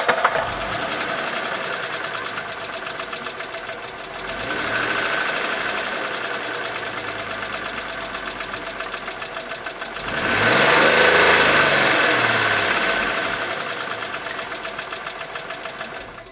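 Chrysler Sebring's 2.7-litre DOHC V6 running with a rapid rod knock, the sign of a blown engine. It is revved briefly about four seconds in, then higher and longer about ten seconds in, and is shut off at the end.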